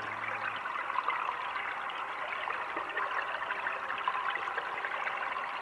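Steady crackling, fizzing water ambience. A held low drone stops about half a second in.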